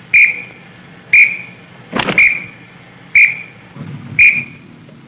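Short blasts on a whistle, one pitch each, about one a second, keeping time for prisoners doing arm exercises in unison. A single sharp knock sounds about two seconds in.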